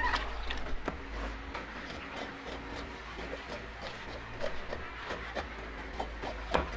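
Cleaver blade shaving and scraping the soft white husk of a young coconut on a wooden chopping block: irregular scrapes with light taps and knocks, a sharper knock near the end.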